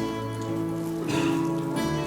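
Instrumental church music without singing: sustained chords over a moving bass line, with a brief hiss-like wash partway through.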